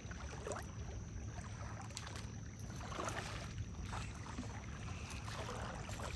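Faint water sloshing and lapping around a wading angler, with small splashes from a hooked fish near the landing net.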